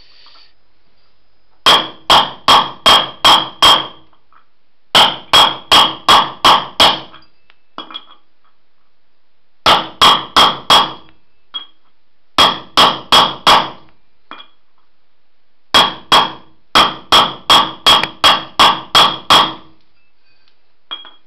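Hammer blows on a socket seated on a ball bearing's outer race, driving the bearing into a go-kart rim. The blows come in six runs of about five to seven sharp metallic strikes, roughly two and a half a second, each with a short ring, separated by pauses and a few light clinks.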